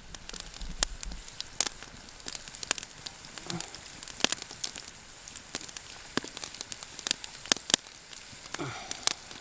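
Walleye fillets coated in fish crisp frying in hot oil in a pan, a steady sizzle with frequent sharp pops and spits.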